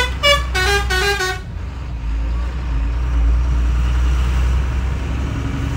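Dumper truck's horn sounding in about four quick toots, then the truck's engine running with a steady low rumble, heard from inside the cab.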